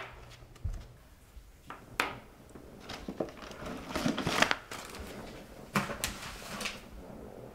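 Papers and folders rustling and crinkling as someone rummages through a cardboard file box, in several short bursts with a few sharp knocks.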